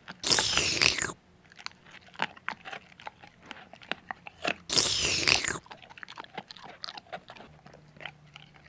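Cartoon munching sound effects: two loud bursts of crunchy chewing about a second long, one at the start and one about five seconds in, with quick clicky chewing and smacking sounds in between.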